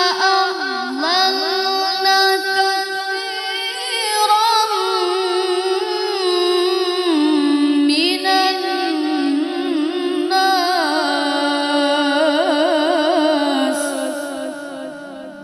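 A boy's voice reciting the Quran in melodic tilawah style through a microphone and sound system, with long held notes and wavering, gliding ornaments. The phrase ends and fades out near the end.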